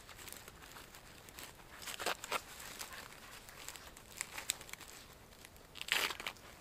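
Snowshoe binding straps being pulled and fastened by hand: a few short rasping, crinkling pulls, a pair about two seconds in and the loudest near the end.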